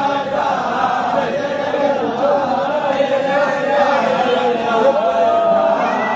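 A large group of men singing loudly together in one melody, with no break in the singing.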